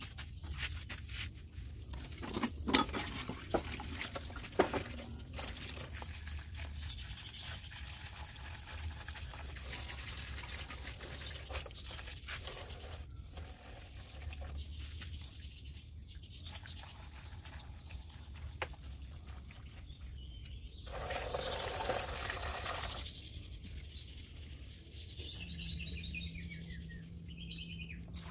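Water from a garden hose pouring and trickling into plastic basins as vegetables are rinsed by hand. A few sharp knocks of plastic bowls and utensils come a few seconds in, and the water gushes louder for a couple of seconds about three-quarters of the way through.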